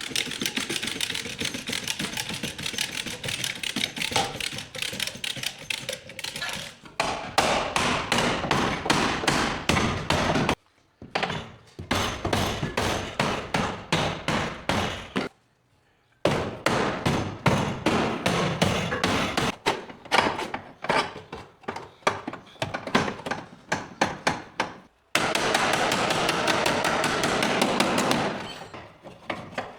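Hammer blows on car body sheet metal during panel beating, struck in quick runs of several blows a second and broken by a few abrupt cuts. A steadier, denser run of blows comes near the end.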